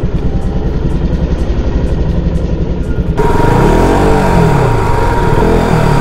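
KTM 390's single-cylinder motorcycle engine running at low speed. About four seconds in it is revved up and back down once, with a smaller blip of the throttle near the end.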